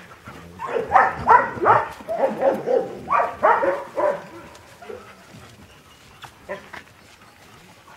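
Dogs barking and whining, a quick run of short calls from about a second in until about four seconds, then only a few faint ones.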